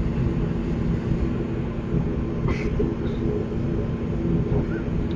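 ATR 42 turboprop engines and propellers running at low power with a steady drone, heard from inside the cabin as the aircraft taxis.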